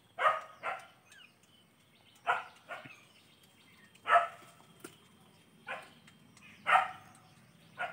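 A dog barking: about eight short barks spaced a second or two apart, several of them in quick pairs.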